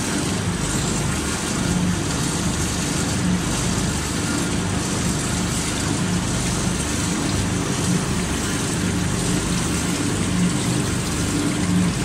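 Screw-press manure dewatering separator running: a steady mechanical noise with a low hum from its drive.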